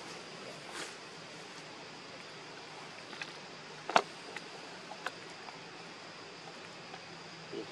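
Steady low outdoor background hiss, with a few short sharp clicks; the loudest comes about four seconds in.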